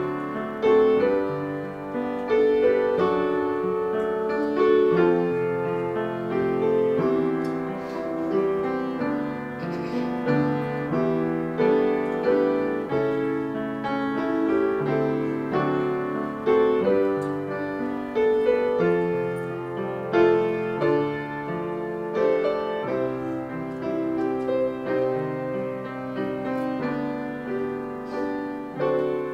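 Grand piano played solo: chords and melody notes struck about once a second, each ringing on as it fades.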